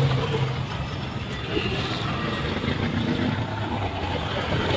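Steady background rumble of road traffic and engines, with no distinct tool strokes.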